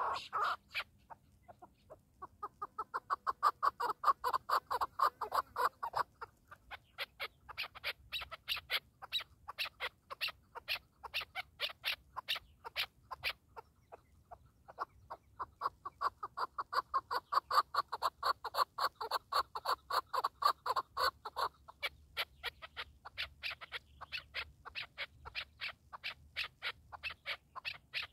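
Chukar partridge calling: rapid series of short chuk notes, rising into two longer, louder bouts, one about two seconds in and another about fifteen seconds in.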